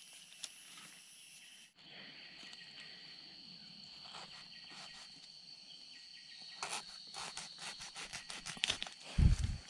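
Forest insects trilling in a steady high-pitched drone; the drone jumps to a lower pitch about two seconds in. From the middle on, a quick run of sharp crackles and snaps comes in, and a loud low thump follows near the end.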